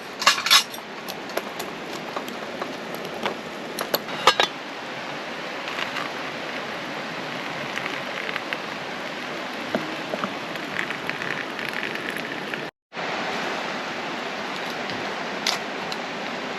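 Metal clinks of a cooking pot and utensils, sharpest near the start and about four seconds in, over a steady rushing hiss.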